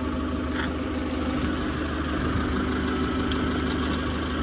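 Forklift engine idling steadily while it holds the combine's final drive on chains, with a light metallic click about half a second in.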